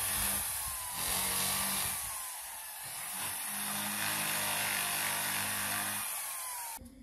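Corded electric drill running a rotary brush against driftwood, scouring dirt and soft rotten wood from the surface to clean it. A steady motor hum with a hissing scrub, easing off briefly about two seconds in, then running steadily until it cuts off near the end.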